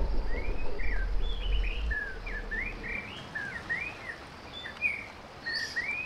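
A deep, low rumble, the imagined call of a Giganotosaurus, dies away over the first two seconds or so. Small birds chirp throughout in quick notes that slide up and down.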